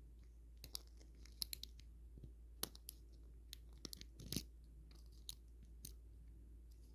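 Faint, irregular clicks and scratches of a short hook pick and tension wrench working the pins of a Kryptonite 855156 puck padlock, with a small cluster of clicks about four seconds in.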